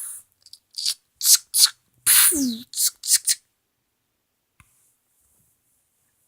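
A child's voice making gunshot sound effects with the mouth for a toy sniper rifle, fired both suppressed and unsuppressed: a quick run of hissing bursts, one with a falling voiced tone about two seconds in.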